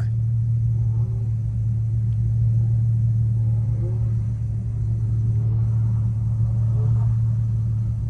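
Car engine idling, a steady low hum, with faint muffled voices underneath.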